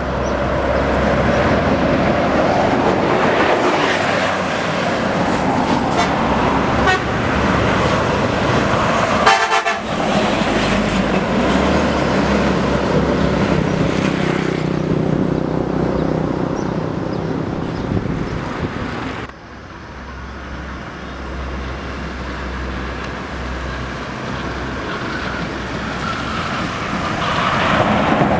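Road traffic passing at speed: bus engines running with tyre and wind noise, and vehicle horns tooting. The sound changes abruptly about two-thirds of the way through.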